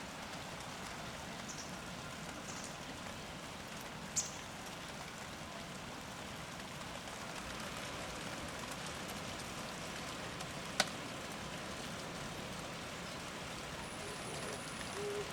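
Steady typhoon rain falling, an even hiss, with two sharp taps: a small one about four seconds in and a sharper one near eleven seconds.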